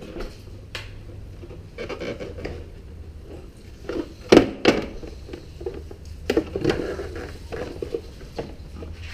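Handling noises from working a motorcycle's front fairing loose: scattered sharp knocks and clicks of plastic parts, with rubbing in between. The loudest knocks come about four seconds in and again around six and a half seconds.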